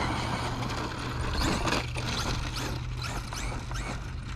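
Traxxas Slash RC truck's 3300 kV brushless motor whining in short throttle bursts: a series of quick rising whines, two or three a second, over a steady low hum.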